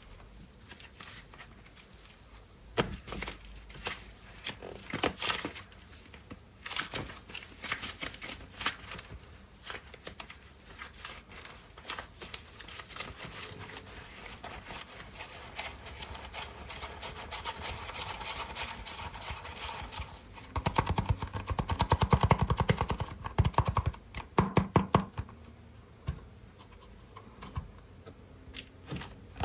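Hands working and handling air-dry clay and its packaging: a string of taps, scrapes and soft squishes. The sounds grow denser and louder about two thirds of the way through, then thin out to scattered taps.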